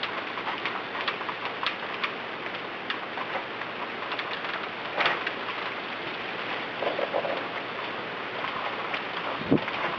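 Heavy rain in a windstorm: a steady hiss with many small irregular ticks of drops striking a surface. There are a couple of louder knocks, one about five seconds in and one near the end.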